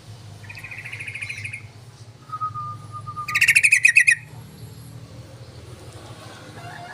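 Yellow-vented bulbul (trucukan) calling: a rattling chatter about half a second in, a short steady whistle just after two seconds, then a louder, fast chatter around three and a half seconds. A low steady hum runs underneath.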